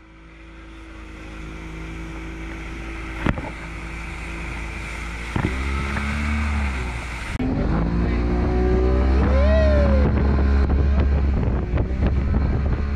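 Outboard motor of a small open boat running at speed through chop, its drone growing louder over the first several seconds, with heavy wind noise on the microphone and water rushing past the hull. The engine note swings up and back down briefly about three-quarters of the way through.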